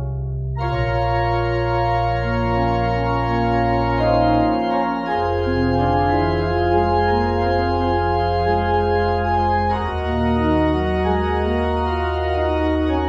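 Church organ playing slow sustained chords over long held low pedal notes, the harmony shifting every few seconds.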